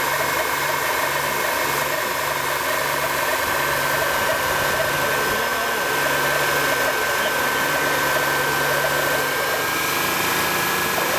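Honda Elysion Prestige engine running steadily at raised revs, with a low hum that pulses on and off about twice a second and turns steady near the end. This is the abnormal noise that the owner hears around 2,900 rpm and thinks probably comes from the automatic transmission.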